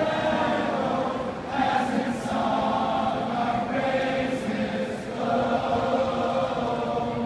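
A large crowd of fans singing together in unison: a slow song in long held phrases.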